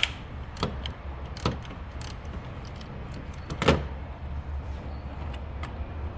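Hand tools knocking and clicking while the alternator and belt tensioner are worked on: four separate sharp knocks, the loudest about three and a half seconds in, over a steady low rumble.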